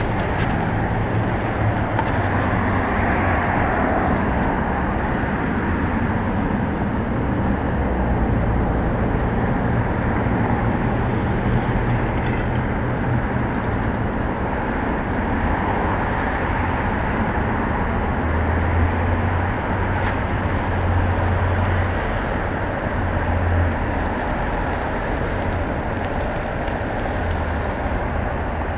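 Road traffic: car and truck engines running and passing by, over a steady background noise, with a low hum that swells and fades in the second half.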